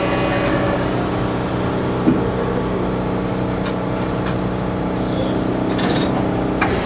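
Astram Line rubber-tyred guideway transit car humming steadily with several steady tones. There is a light knock about two seconds in and a couple of clicks near the end.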